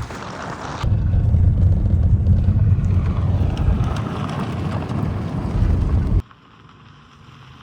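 Low, steady rumble of a vehicle driving, starting abruptly about a second in and cutting off abruptly near the end.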